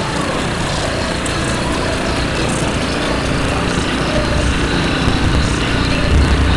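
A steady motor running, a dense mechanical noise with a faint hum, with a low rumble swelling near the end.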